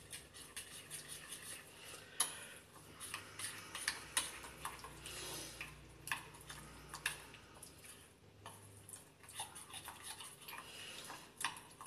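A fork stirring a thick ketchup-and-spice marinade in a glass bowl: faint, quick, irregular scraping and clicking of metal against the glass.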